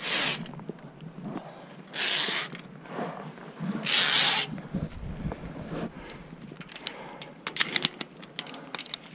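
A climber breathing hard, three heavy exhales about two seconds apart, then from about two-thirds of the way through a run of sharp metal clicks and clinks of via ferrata carabiners being handled on the steel cable.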